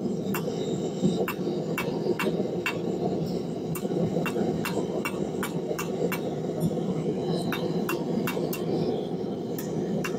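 Hammer striking hot steel on an anvil at a steady pace of about two blows a second, each strike ringing briefly, with a couple of short pauses. Under it runs the steady rushing noise of the forge.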